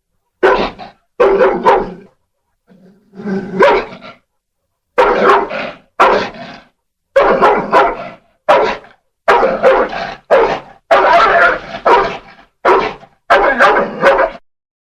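St. Bernard barking repeatedly in short, loud barks with brief gaps. About three seconds in, a quieter low growl swells into a bark, followed by a quick run of about a dozen barks.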